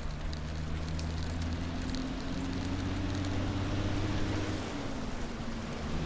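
Recumbent trike tyres rolling on a paved trail: a steady rushing noise with a low hum under it that drifts slightly in pitch.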